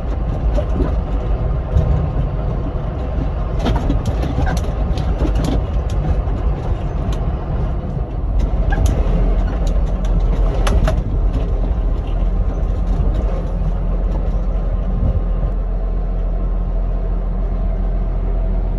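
John Deere 6920S tractor running under way, a steady low engine drone, with a run of sharp clatters and knocks in the middle.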